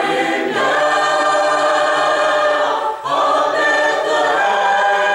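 Mixed choir of men and women singing long held chords, with a short break for breath about three seconds in before the next chord.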